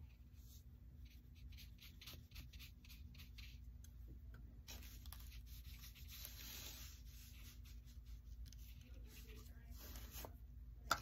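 Faint brushing of a watercolour paintbrush stroked across sketchbook paper: a run of short strokes, with a longer, fuller stroke about halfway through.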